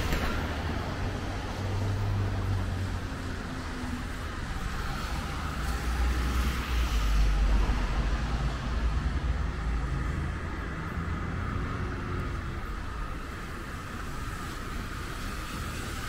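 Road traffic on wet city streets: passing vehicles and a steady hiss, with a heavy low rumble that swells from about six to ten seconds in.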